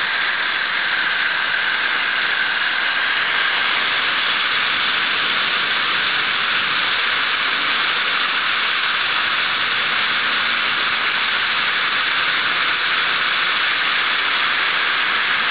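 Garden hose running water, a steady even hiss with no change throughout.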